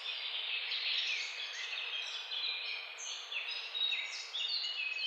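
Many birds chirping at once: a dense chorus of short, overlapping high chirps and trills over a steady hiss.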